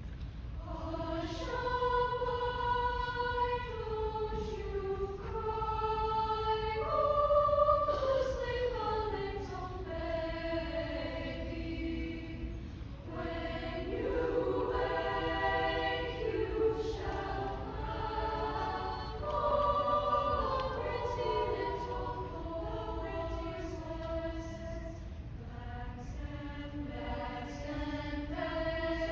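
Treble choir of young women singing, in long held notes that slide from one pitch to the next.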